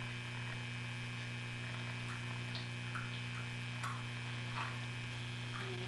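Steady electrical hum with a buzz of many fixed tones above it, the kind of mains hum carried on an old camcorder tape recording. A few faint light clicks and taps sound scattered through the middle and end.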